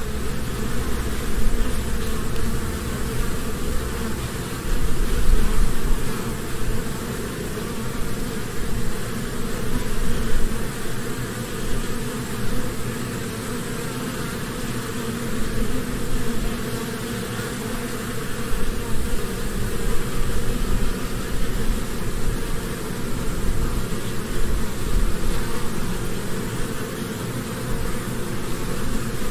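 Honeybees humming at a hive: the dense, steady drone of many bees buzzing together, swelling and easing a little.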